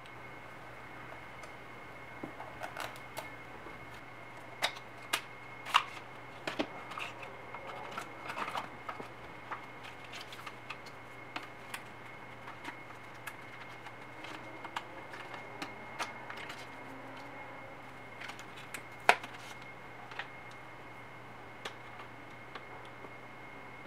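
Close-up handling of an Apple MagSafe Charger's packaging: the cardboard box opened, the charger slid out of its paper wrap and its cable unwound, giving scattered taps, clicks and paper rustles. The loudest is one sharp click about 19 seconds in.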